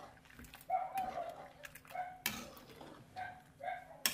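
Steel ladle clinking and scraping against an aluminium karahi while dough pieces are stirred in boiling water, with a few sharp clinks. Several short pitched calls sound in between.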